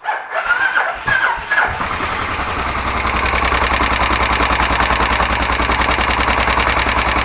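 Kawasaki VN1500 Vulcan's V-twin engine started on the electric starter. It whines and catches within about a second and a half, then settles into a steady, evenly pulsing idle.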